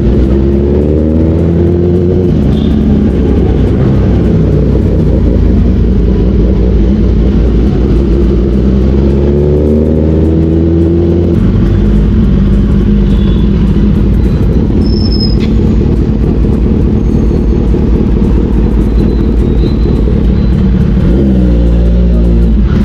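Kawasaki Ninja ZX-10R inline-four engine running under way at low speed. It revs up with a rising pitch about a second in and again around ten seconds, with a short blip of the throttle near the end, over wind and road noise.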